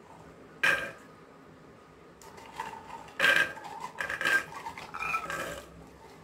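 Soaked Bengal gram being tipped and scooped from a steel bowl into a pressure cooker pot: a sharp metal clank about half a second in, then a run of clanks and clatter with a short metallic ring from about two seconds in until near the end.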